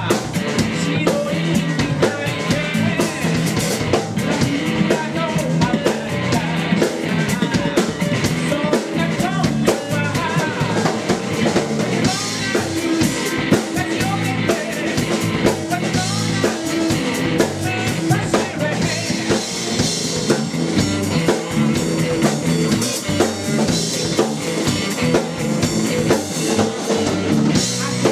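Rock band playing live: electric guitar and electric bass over a drum kit keeping a steady beat.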